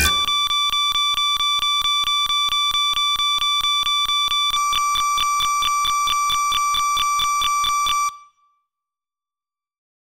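Steady electronic alarm-like tone with a fast regular click about five times a second, which cuts off suddenly about eight seconds in.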